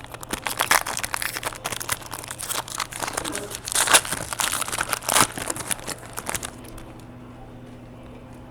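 Plastic card-pack wrapping crinkling and rustling as trading cards are unwrapped and handled, stopping about two-thirds of the way through and leaving a faint steady hum.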